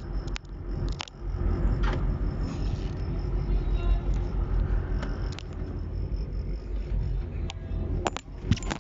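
Boat engine running steadily with a low rumble, with scattered knocks and clicks from gear being handled.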